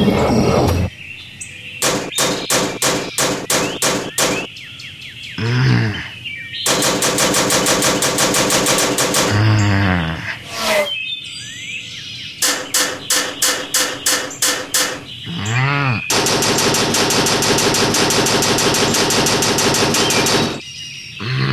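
Stylised cartoon sound effects: runs of sharp rattling pulses, about four a second, alternate with longer rapid buzzing trills. A few short sliding tones that dip and rise again come in between.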